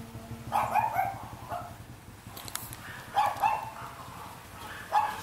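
A dog barking, several short barks in three or four bouts.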